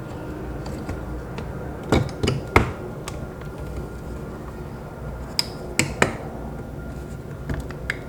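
Sharp clicks and taps of car interior trim pieces being handled and slid into place. They come in quick clusters: three about two seconds in, three more about five to six seconds in, then a few lighter ticks near the end.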